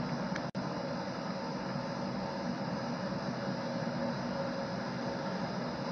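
Steady background hum and hiss with no speech, cutting out for an instant about half a second in.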